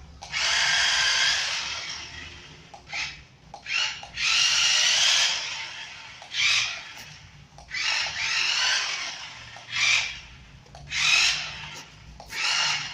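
Small electric motor and gearbox of a toy RC car whirring in short bursts, starting and stopping about eight times, some bursts about a second long and others brief.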